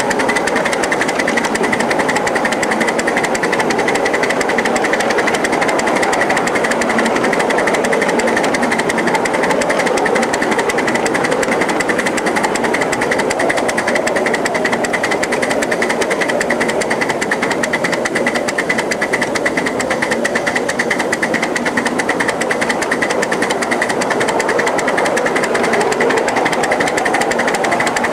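1-inch-scale live-steam 0-4-0 switcher locomotive running along the track with a rider's car: a rapid, steady clatter of exhaust beats and wheels on the rails.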